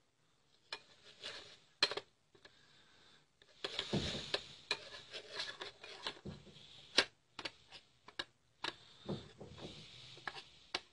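A spoon clicking and scraping against a small bowl of gram flour and rose water, sparse at first, then busier and near-continuous from about four seconds in.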